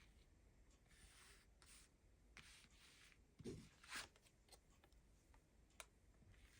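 Faint rustling and soft sliding of tarot cards being handled, with two brief louder rustles about three and a half and four seconds in.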